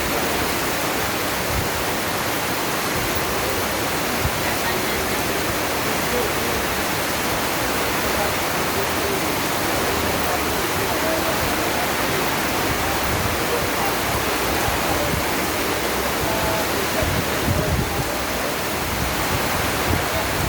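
Heavy cyclone rain pouring steadily: a dense, even hiss with no let-up.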